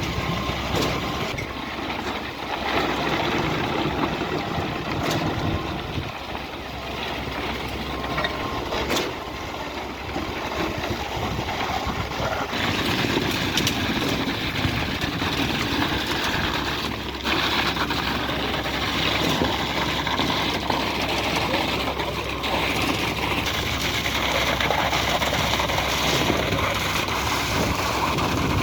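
Heavy diesel construction machinery running steadily on a concrete pour, with a few sharp knocks.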